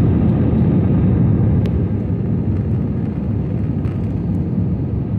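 Airliner cabin noise in flight: a steady, loud, low drone of jet engines and airflow.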